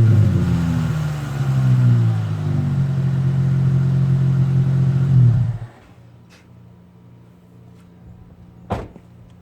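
2016 Dodge Challenger SXT Plus's 3.6-litre V6 through Max Flow 1256 mufflers with the resonators deleted, dropping back from a rev to a deep idle. It picks up slightly around two seconds in, then idles steadily and cuts off suddenly about five and a half seconds in as the engine is switched off. A single sharp click comes near the end.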